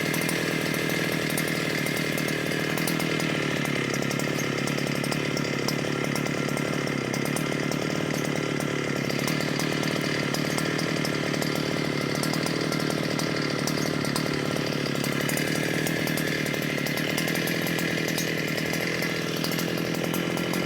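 Stihl brushcutter with a chainsaw-toothed circular saw blade running at a steady speed, with an even, unchanging engine note.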